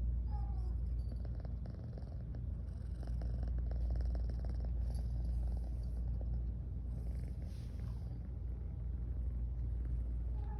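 Domestic cat purring steadily and close up, a continuous low rumble that swells and eases in slow waves.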